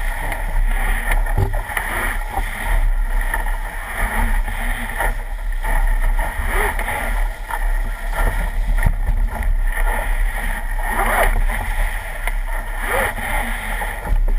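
Wind buffeting a mast-mounted camera's microphone over water rushing and splashing along a sailing dinghy's hull as it drives downwind through choppy waves and spray.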